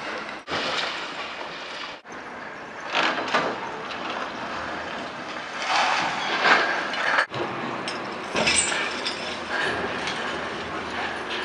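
Long-reach demolition excavator's hydraulic crusher biting into a concrete building, with crunching and clattering of breaking concrete in several louder bursts over steady machine noise. The sound breaks off abruptly three times.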